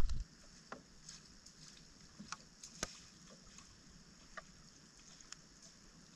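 A loud low rumble cuts off abruptly just after the start. Then come faint, irregular small splashes and clicks of footsteps wading through shallow standing water, over a steady faint high hiss.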